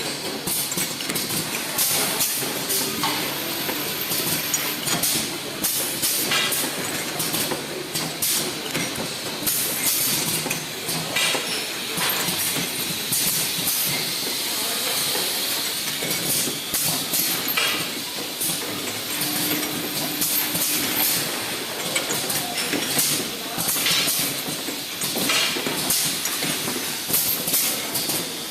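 Automatic perfume filling machine running, with irregular sharp clicks and hisses over a steady mechanical noise.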